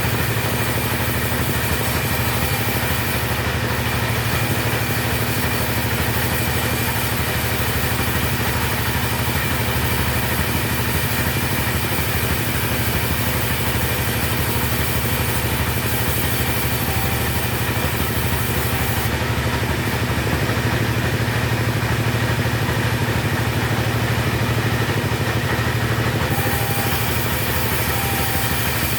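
Chainsaw engine running at a steady, even speed.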